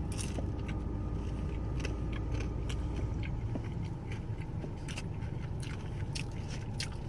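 Close-up chewing and biting of potstickers: scattered short, moist clicks and crunches, over a steady low hum inside a car.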